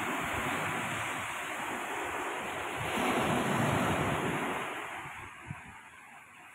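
Sea surf breaking and washing up a sandy beach, with wind buffeting the microphone. The wash swells about three seconds in, then dies away near the end.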